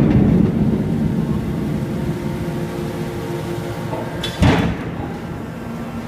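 Hydraulic aluminium scrap baler working: the hydraulic pump hums steadily while the press rumbles loudly at first, easing off after about a second, then a sharp metal bang about four and a half seconds in.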